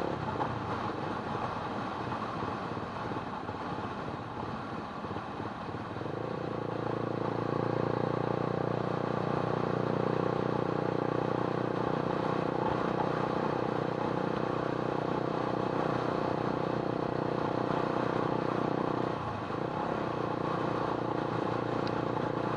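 A motor vehicle engine running with a rushing noise. Its note settles into a steady hum about six seconds in, dips briefly near the end, then picks up again.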